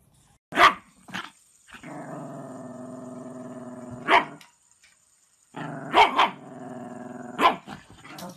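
Chihuahuas barking and growling: two sharp barks, then a long steady growl that ends in a bark. After a short pause comes a second long growl broken by a few more barks.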